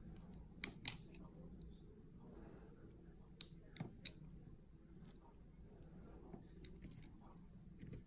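Utility-knife blade cutting into a bar of soft soap, giving a few sharp, crisp clicks: two close together about a second in, then three more around three and a half to four seconds.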